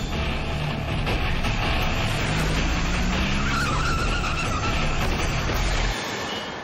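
Cars speeding away, engines running hard, with a short tyre screech in the middle. The sound cuts off suddenly about six seconds in.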